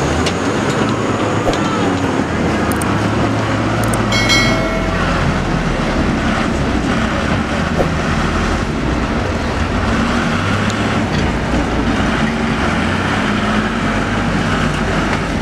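Diesel engines of a mud-bogged dump truck and a wheel loader pushing it, running hard under load. A brief high-pitched tone sounds about four seconds in.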